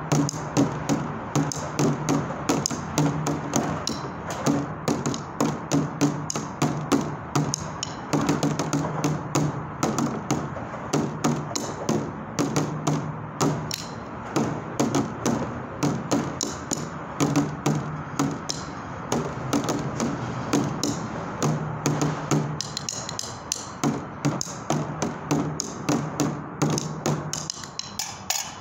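Street bucket drumming: wooden drumsticks beat a fast, continuous rhythm on an upturned plastic bucket, with many sharp stick clicks and a low tone from the bucket on the heavier hits.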